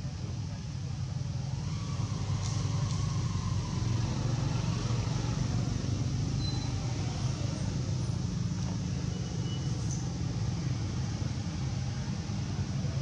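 Steady low rumble of passing motor traffic, with a few brief high chirps.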